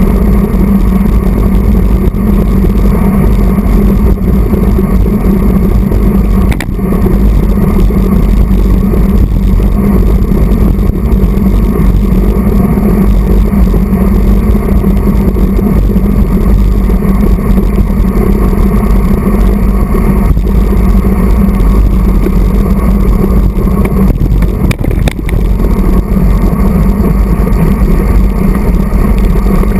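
Wind rushing over the microphone of a handlebar-mounted action camera on a road bike at racing speed: a loud, steady low rumble, with a couple of brief dips.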